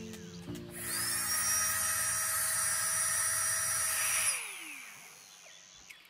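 Small battery-powered air pump running on the valve of an Exped MegaMat sleeping pad, pumping air into it: a steady motor whine that spins up about a second in and winds down after about four seconds.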